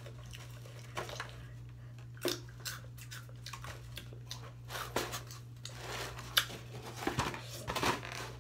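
Intermittent crunches and scrapes of hot chips being picked at and shifted on a foam plate. The sounds are scattered at first and come more thickly in the second half.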